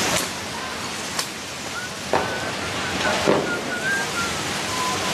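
Steady rushing hiss of a dense barrage of rockets streaking overhead, broken by about four sharp cracks and a few short wavering whistles in the middle.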